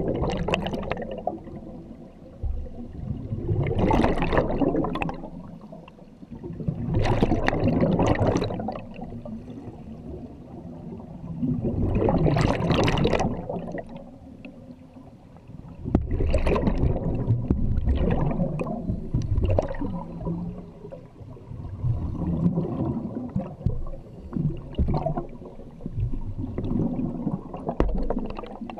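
Scuba regulator exhaust underwater: a diver's exhaled breath bubbling out in a swelling burst every three to four seconds, with quieter spells between breaths.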